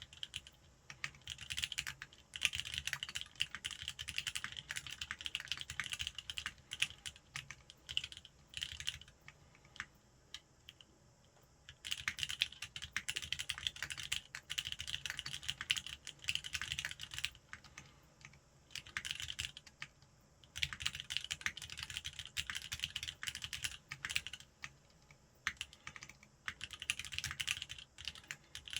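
Typing on a custom mechanical keyboard, a Linworks Whale with lubed linear Cherry MX Black switches on an aluminium plate, sandwich mount, with heavy Ramaworks keycaps: fast runs of keystrokes broken by a few pauses of about two seconds.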